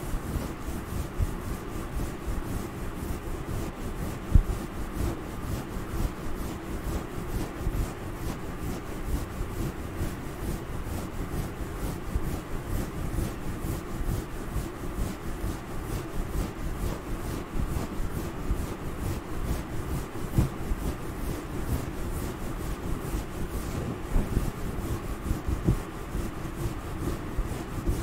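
Fingertips scratching and rubbing a fuzzy grey covering close to the microphone: a continuous, dense, close-up scratching and rustling, made as ASMR head-scratching sounds.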